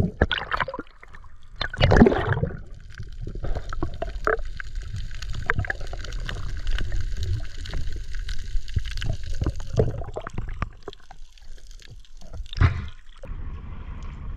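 Water gurgling and sloshing around an action camera in the water, with many small knocks and clicks. There are two louder surges at the start, about two seconds apart, and another near the end.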